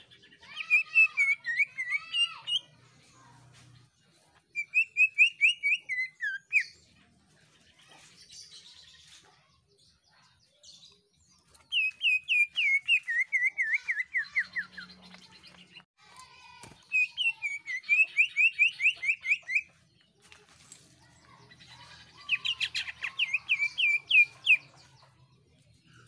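A male cucak ijo (greater green leafbird) sings five loud phrases of fast, trilled whistled notes, each lasting one to three seconds, with short pauses between them.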